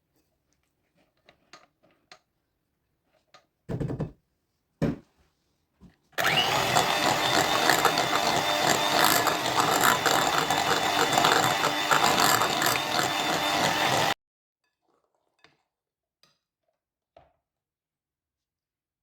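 A small electric kitchen appliance motor runs at a steady speed for about eight seconds, switching on and off abruptly. A couple of sharp knocks and faint clicks come before it.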